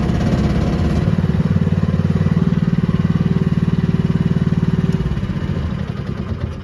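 Small air-cooled gasoline engine of a mini excavator running steadily with an even pulsing beat, then slowing and fading near the end.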